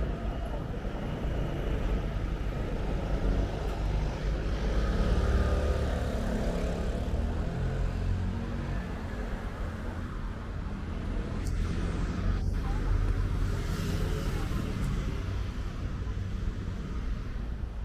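Road traffic: cars driving past in a steady low rumble of engines and tyres, swelling twice as vehicles go by.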